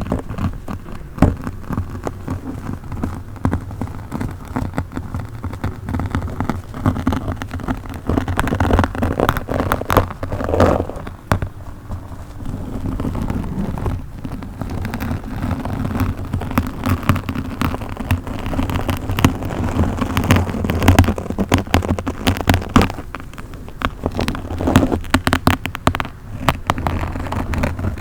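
A microphone being scratched and rubbed directly: a dense, uneven stream of crackles and pops over a low rumble.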